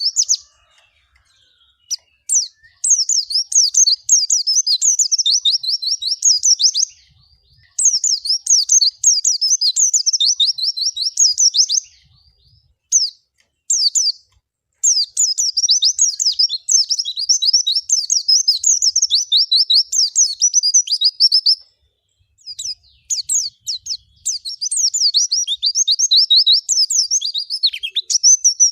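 A pleci (white-eye) singing in long runs of rapid, high twittering notes, each run lasting several seconds, broken by pauses of a second or two.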